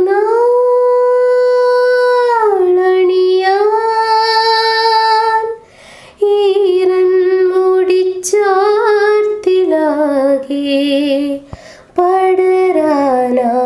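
A woman singing a Malayalam song in long, held notes that slide slowly up and down, with two short breath pauses and little heard behind the voice.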